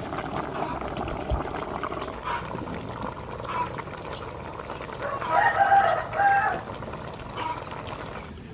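A rooster crows once about five seconds in, one call of about a second and a half in two parts. A few shorter, fainter calls come before it.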